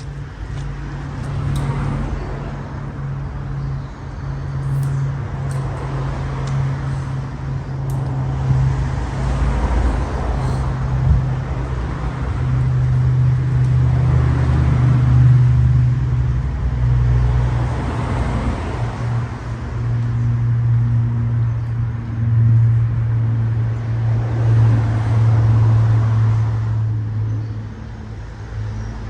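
Engine noise: a steady low engine hum runs throughout, with louder rushes that swell and fade every few seconds.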